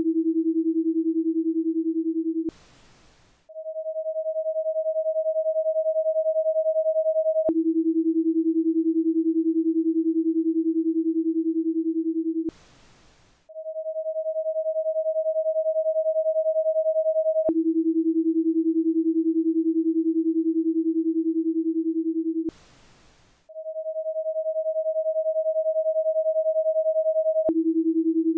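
Paced-breathing guide tones in a ten-second cycle. A steady higher tone for about four seconds cues inhaling, then a lower tone about an octave below for about five seconds cues exhaling, followed by about a second of near silence as a breathing pause. The cycle comes round three times, with a faint click where the high tone switches to the low one.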